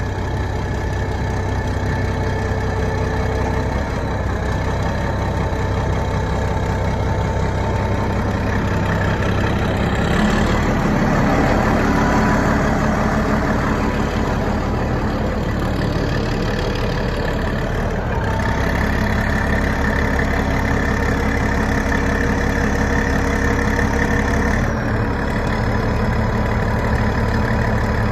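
Shantui SD16 bulldozer's diesel engine running steadily at idle. About ten seconds in it picks up, louder and rougher for several seconds, then settles back to a steady run about eight seconds later.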